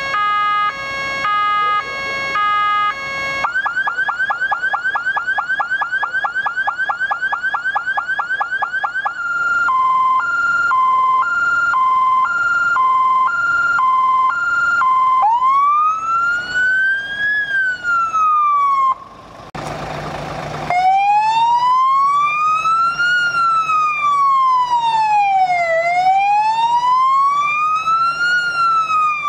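Fire-service electronic siren running through its tone programmes. It opens on a stepped multi-tone pattern, switches a few seconds in to a fast yelp, then to a two-tone hi-lo, then to a single wail. About twenty seconds in there is a short rushing burst, after which a slow wail rises and falls about every five seconds over a steady low tone.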